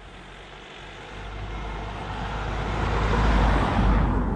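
A car driving past close by on the road, its engine and tyre noise swelling to a peak near the end and then falling away.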